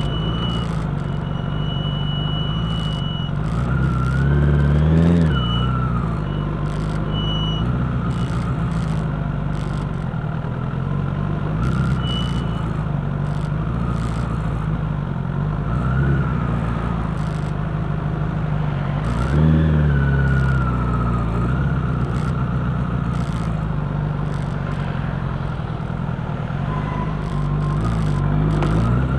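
Engine of the vehicle carrying the camera, running at low speed in traffic. Its pitch rises and falls as it picks up speed, about four seconds in and again about nineteen seconds in.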